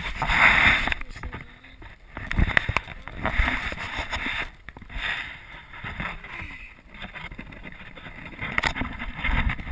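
Handling noise from a GoPro camera being gripped and adjusted by hand: fingers rubbing across the housing, with irregular knocks and clicks and swells of rustling.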